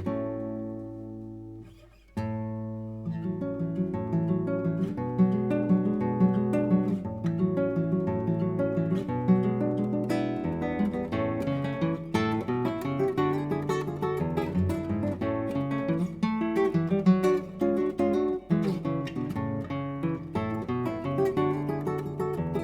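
Solo acoustic guitar playing an Argentine gato, mixing strummed chords with picked melody. Near the start a chord rings out and fades almost to silence, then the playing picks up again about two seconds in.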